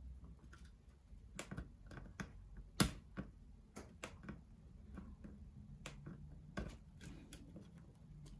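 Light clicks and taps of small plastic and metal laptop parts and tools being handled during disassembly: a dozen or so at uneven intervals, the loudest about three seconds in.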